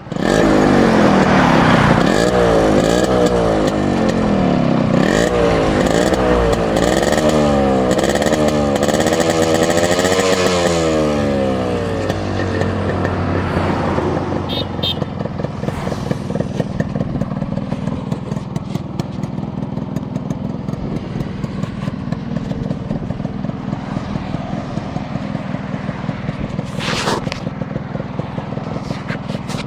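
Yamaha RX 100's two-stroke single-cylinder engine revved up and down repeatedly with throttle blips, then settling to a steady idle about twelve seconds in.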